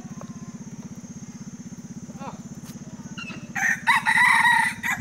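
Rooster crowing once: a single loud crow of about a second and a half, starting about three and a half seconds in. Under it runs a steady, fast, low throbbing.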